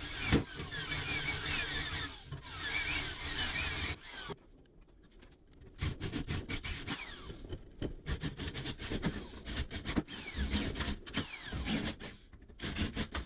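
Cordless drill with a 7/32 in (5.5 mm) bit drilling out the spot welds in a Triumph GT6 Mk2's steel windscreen frame. It runs steadily for about four seconds, pauses, then runs in short bursts.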